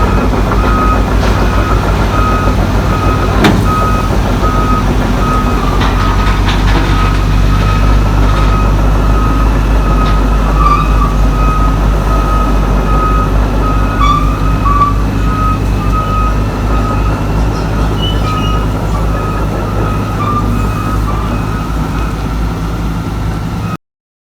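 Heavy diesel machinery running with a low, steady rumble while a backup alarm beeps over it in regular repeated beeps, cutting off abruptly near the end.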